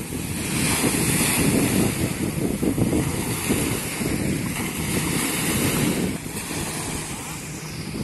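Small sea waves washing up on a sandy beach, mixed with wind buffeting the microphone; louder for the first six seconds, then easing.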